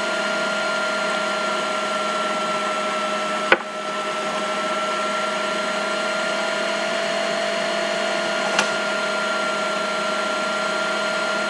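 A steady machine-like hum with a constant whine, unchanged throughout. A sharp click comes about three and a half seconds in, and a fainter one near eight and a half seconds.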